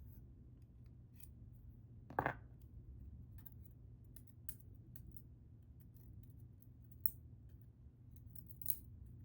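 Tweezers and small metal lock parts clicking and tapping as pins and springs are picked out. One sharp metallic click with a short ring about two seconds in, and fainter ticks after it, two of them louder near the end.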